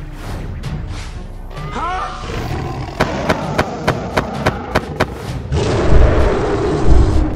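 Cartoon sound effects over background music: a giant ape gives a short wavering cry, then beats its chest, about eight hard thumps at roughly four a second. Near the end comes a loud rushing whoosh with a deep rumble as a monster flies past.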